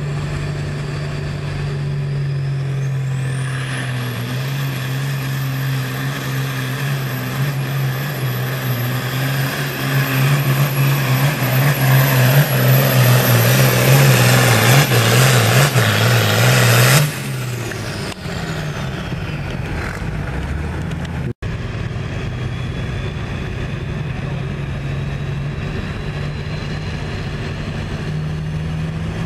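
Turbocharged diesel engine of a hot farm pulling tractor at full throttle dragging the weight sled, with black smoke pouring out. A high turbo whine climbs about three seconds in and holds over the steady engine note, and both grow louder in the final seconds of the pull. About seventeen seconds in the throttle is cut: the loudness drops at once and the whine winds down, leaving the engine idling.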